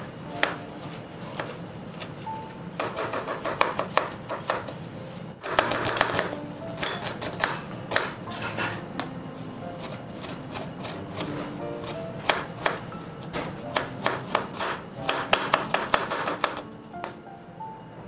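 Kitchen knife chopping a red onion on a wooden cutting board: runs of quick, sharp taps with short pauses between them. Soft background music plays underneath.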